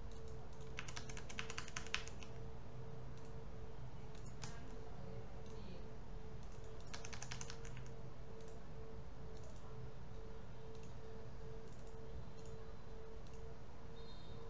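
Bursts of rapid clicking from a computer keyboard and mouse, one about a second in and another around seven seconds in, with scattered single clicks between them, over a steady low hum.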